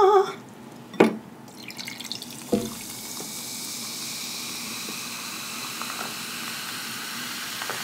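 A can of peach sparkling water being opened for ASMR: a click, then a sharper pop about two and a half seconds in, followed by a steady fizzing hiss of carbonation close to the microphone.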